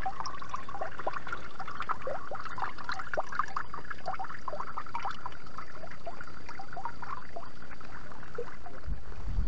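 A small forest brook trickling and bubbling over stones close to the microphone, in a steady, dense patter of small water sounds. A brief low rumble comes near the end.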